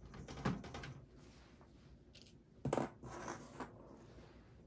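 Small handling noises from unscrewing a desktop PC's motherboard: scraping and rubbing of a screwdriver and screws against the steel chassis, with a sharp click about half a second in and a louder knock a little past the middle.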